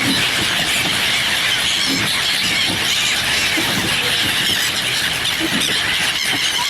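A large flock of birds calling all at once, a dense, unbroken chorus of high-pitched squealing cries.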